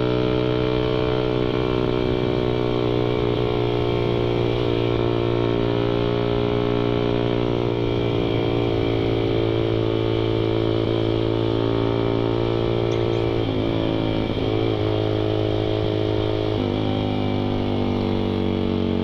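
Suzuki Satria FU 150's carburetted single-cylinder four-stroke engine running at steady high revs under way, through a loud open (brong) aftermarket exhaust. Its pitch dips briefly a few times about two-thirds of the way through and settles to a lower note near the end.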